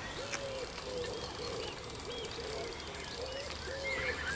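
A pigeon cooing in a repeated run of short, soft notes, with small birds chirping over it.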